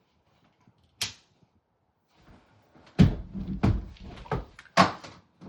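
Clicks and clunks of a pushchair being handled and folded: one sharp click about a second in, then a run of plastic-and-metal knocks, the loudest about three seconds in and near the end, among them the pushchair's cup holder knocking against the frame.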